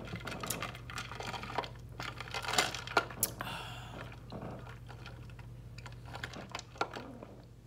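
Eating sounds close to the microphone: irregular clicks and small crunches of chewing and handling a Subway sub, over a faint steady low hum.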